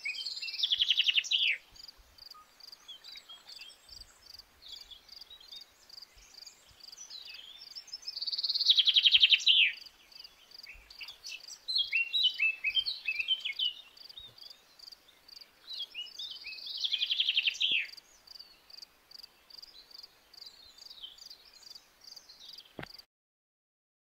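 Evening bird chorus over steadily chirping crickets. A songbird gives a loud phrase of rapid notes falling in pitch three times, about eight seconds apart, among other birds' scattered chirps, while the crickets keep up an even pulsing chirp. All sound cuts off suddenly near the end.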